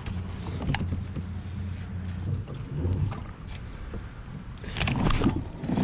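Wind noise on the microphone aboard a fishing kayak: a steady low rumble that fades out about two and a half seconds in, with a few small handling knocks and a short rushing burst near the end.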